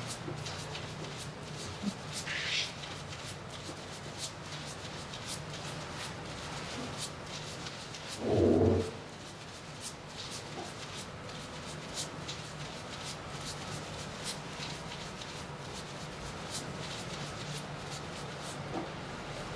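Gloved fingers scrubbing shampoo lather into hair and scalp, a soft rubbing with many small crackling clicks from the foam, over a steady low hum. A short, louder low sound comes about eight seconds in.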